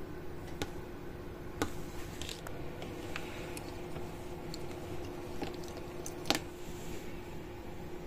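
Small clicks and light rustles of insulated power cables and crocodile battery clamps being handled, the sharpest click about six seconds in, over a steady background hum.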